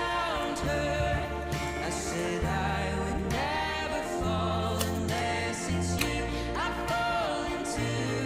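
Background music: a song with a sung melody over a steady bass and beat.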